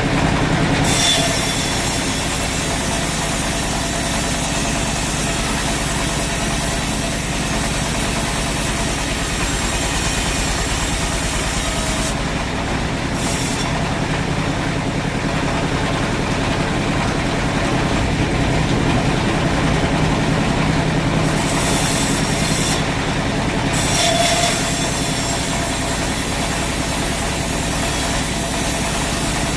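Sawmill machinery running steadily: a low motor hum with a bright hiss above it that cuts out briefly twice, about halfway through and again about three-quarters of the way through.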